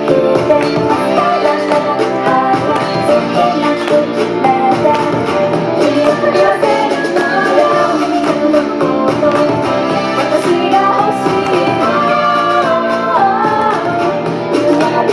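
Upbeat J-pop song with female singing over a full instrumental backing.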